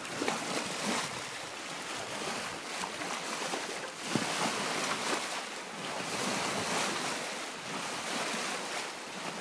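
Sea water rushing and splashing along the hull of a sailing yacht under way, with wind buffeting the microphone.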